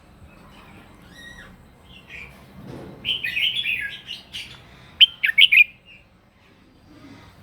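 Red-whiskered bulbul singing competitive 'fighting' song: short phrases of quick, bright chirping notes, with a loud phrase about three seconds in and a fast run of notes about five seconds in.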